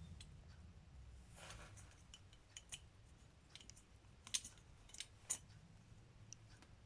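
Faint, scattered light clicks and taps of small metal parts of a Mikuni carburetor being fitted by hand, as a pin is slid into the float assembly; the sharpest click comes about four seconds in.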